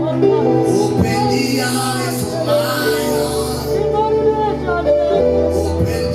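Music with singing voices over sustained keyboard-like chords and a steady bass line.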